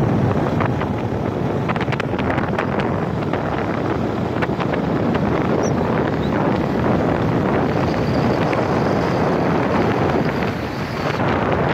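Wind rushing over the microphone of a moving motorcycle, mixed with the ride's road and engine noise, with scattered sharp clicks over the first few seconds.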